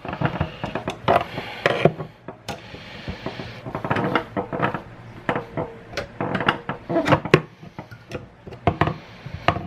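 A metal tool scraping, clicking and clinking against a teaspoon scoop jammed in a garbage disposal's grinding chamber, as someone tries to prise it loose. The knocks come irregularly, with a short ringing tone about halfway through.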